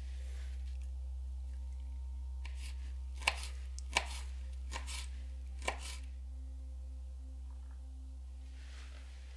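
Small knife chopping a pineapple ring on a wooden cutting board: about five sharp taps between three and six seconds in, over a steady low hum.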